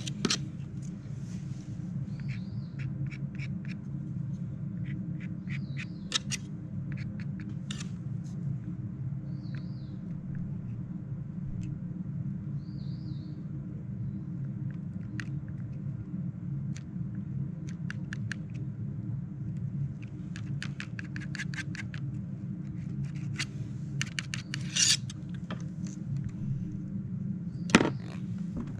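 Palette knife scraping and tapping across paint-covered paper in short strokes, in small clusters, with one sharper knock near the end, over a steady low hum.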